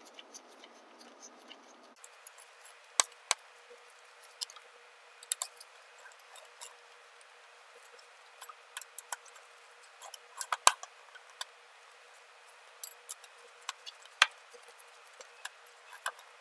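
Scattered light metal clicks and taps of a wrench tightening the wire terminal nuts on an electric motorbike's motor controller, coming irregularly with a few louder clicks.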